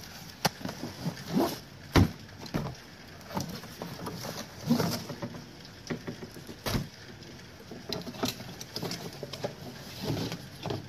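Cardboard box being opened and plastic-wrapped storage bags pulled out of it and set down: irregular rustling and crinkling of plastic and cardboard, with sharp knocks about two seconds in and again near seven seconds in.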